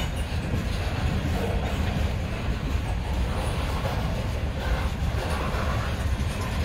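Freight train cars rolling past: a steady low rumble of wheels on rail from covered hoppers and centerbeam flatcars loaded with lumber.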